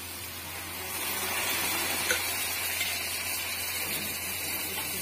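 Milky liquid poured from a steel vessel into a hot iron kadhai of fried masala, sizzling and hissing as it hits the hot pan; the hiss swells about a second in and holds steady.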